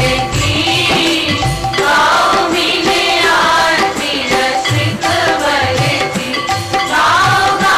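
Hindu devotional aarti hymn: voices singing over tabla and other percussion.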